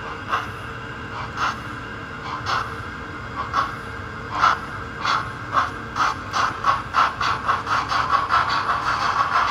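Sound decoder of a Roco model of the DB class 10 steam locomotive (10 002) playing steam exhaust chuffs over a steady hiss as it gets moving. The chuffs come about once a second at first and quicken steadily to several a second near the end.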